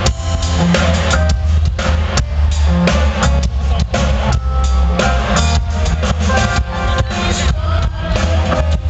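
Rock band playing live through a concert sound system: drum kit, bass and guitars, loud and heavy in the low end.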